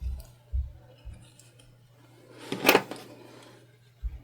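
Scissors cutting a strip of fabric binding: one sharp snip about two and a half seconds in, among a few soft knocks of handling.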